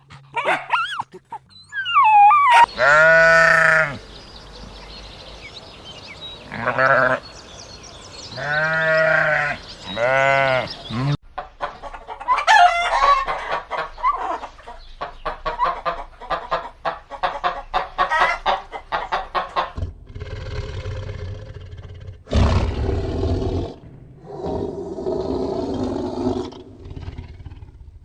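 A run of farm animal calls: several loud, drawn-out goat bleats, then a long stretch of rapid chicken clucking with a few rising calls, and lower, rough grunting calls in the last third.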